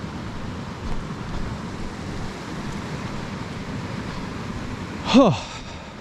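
Steady rushing of a moorland river flowing over rocks, mixed with wind on the microphone. About five seconds in comes one short vocal sound that rises then falls in pitch.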